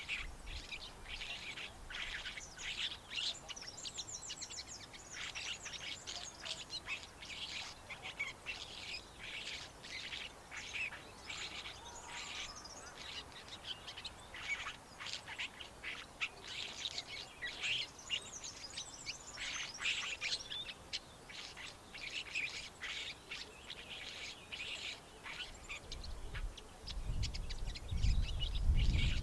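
Cape sugarbird singing: runs of rapid, high chirping notes with short gaps between phrases. A low rumble comes in near the end.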